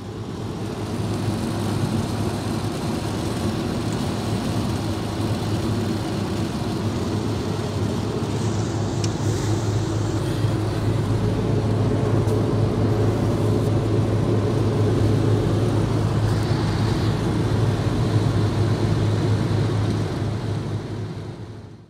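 Steady road and engine noise inside the cabin of a car cruising on a highway, a low hum under tyre and wind rush. It fades in at the start and fades out at the end.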